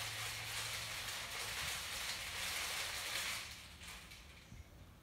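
Ice cubes rattling hard inside a cocktail shaker being shaken by hand, mixing a tea drink over ice. The shaking stops a little after three seconds in.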